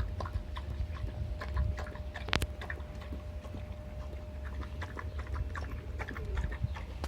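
Newborn puppies suckling: many small wet clicks and smacks over wind rumbling on the microphone, with one sharper click about two and a half seconds in.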